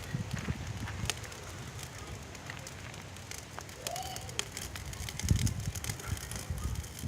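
Cooking fire crackling, with many scattered sharp pops; a low rumble comes in about five seconds in.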